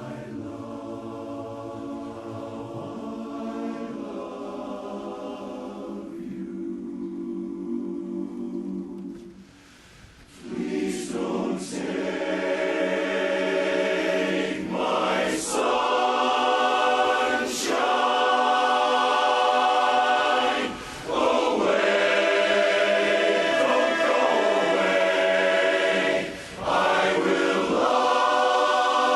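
Barbershop chorus singing a cappella in close harmony. It sings a softer passage, breaks off briefly about a third of the way in, then comes back louder and full-voiced, with two short breath breaks later on.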